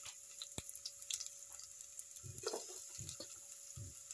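Sliced garlic and shallots dropped by hand into a pot of water: a few faint, scattered plops and small splashes. A faint steady hum runs underneath.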